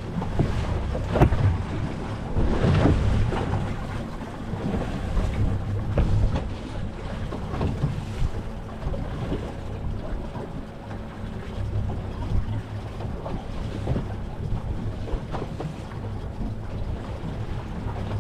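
Open-water noise aboard a fishing boat: wind buffeting the microphone over a steady low rumble, with scattered knocks and clatter from gear on deck.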